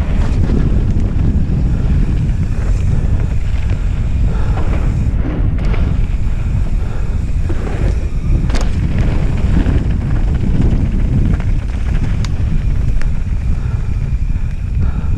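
Heavy wind buffeting on a helmet camera's microphone as a mountain bike rolls fast down a dirt trail, with a steady low rumble from the tyres on dirt. A few sharp knocks from the bike over bumps, the clearest about eight and a half seconds in.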